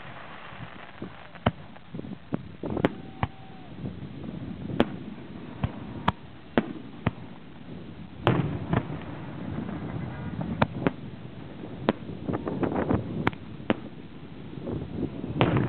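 Aerial fireworks: a string of sharp bangs from shells launching and bursting, irregularly spaced, with a denser run of reports near the end.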